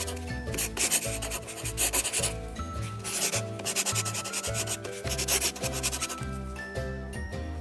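Scratchy rubbing strokes of a word being written by hand, in quick bursts that stop about three-quarters of the way through, over background music with a repeating bass line.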